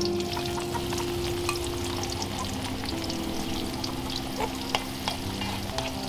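Sliced shallots sizzling in hot oil in a wok as they are fried for crispy shallots, with scattered sharp crackles and pops. The sizzle starts suddenly as the shallots are tipped into the oil, and they are then stirred with wooden chopsticks.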